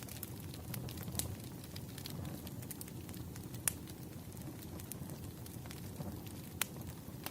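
Campfire burning: a steady low rumble of flames with scattered crackles and pops, the sharpest about halfway through and again near the end.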